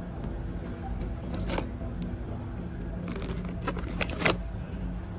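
Supermarket background noise: a steady low hum, with a few short rattles and clicks about a second and a half in and again around four seconds in.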